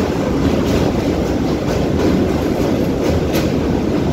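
Train running across a steel truss railway bridge: a loud, steady rumble of wheels on rails, with a sharp click now and then as wheels pass rail joints.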